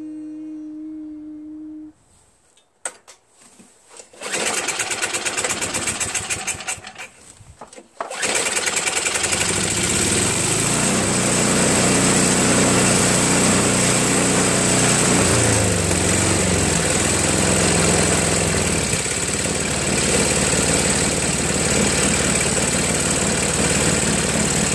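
Five-horsepower Tecumseh snowblower engine on a Craftsman 524 two-stage snowblower. It opens with a short steady hum and a few clicks, then chugs rapidly and unevenly for about four seconds, and about a third of the way in settles into steady running, its pitch shifting briefly midway. The engine has low compression from being run without oil, and it runs well after a quick carburetor clean.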